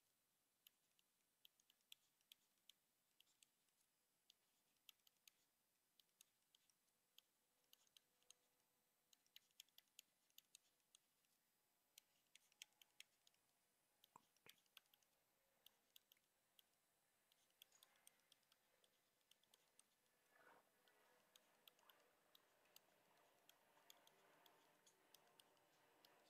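Faint, irregular clicks and taps of a stylus tip on a tablet screen during handwriting. A faint steady background noise grows in the last several seconds.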